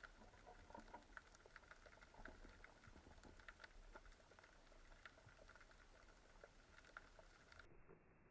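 Near silence with faint underwater crackling: many scattered small clicks and pops, the usual background crackle of the sea.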